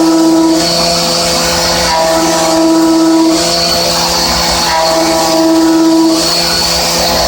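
Hermle C20U machining centre trochoidal-milling with a 16 mm solid end mill at 4800 rpm, 30 mm deep and 1 mm wide: a steady spindle-and-cutting tone that swells and fades in a regular cycle about every two and a half seconds as the cutter loops in and out of the cut.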